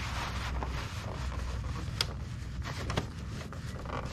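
Paper towel rubbing and wiping oily grass residue off the mower engine around its valve cover, with two light knocks about two and three seconds in, over a steady low hum.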